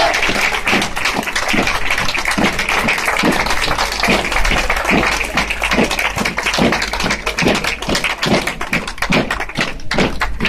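Spectators clapping in a steady rhythm, about two claps a second, over crowd noise, in time with a march; the clapping gets denser near the end.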